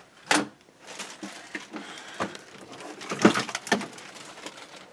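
Rustling and knocking of stuffed toys and clothes being handled, with a sharp knock about a third of a second in and a cluster of louder knocks about three seconds in.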